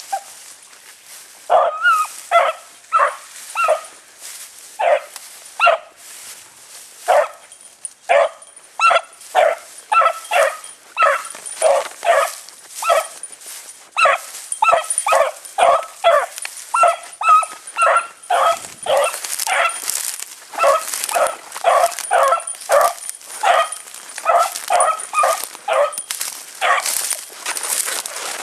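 Beagle hound baying on a rabbit chase: a long run of short, pitched yelps, one to two a second, with brief breaks.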